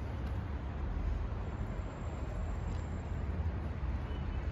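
Outdoor street ambience: a steady low rumble with no distinct events.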